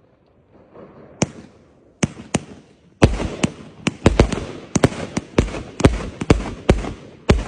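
Fireworks going off: a single sharp bang about a second in, two more near two seconds, then a rapid, irregular string of loud bangs from about three seconds on, each fading in a short echo.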